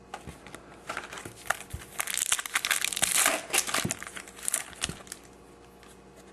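Foil trading-card pack wrapper crinkling and tearing as it is opened by hand. The crackling is busiest in the middle and dies away about five seconds in.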